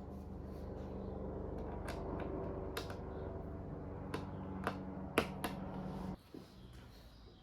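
Sharp clicks and snaps of plastic laptop parts being handled during disassembly, over a steady hum that cuts off abruptly near the end.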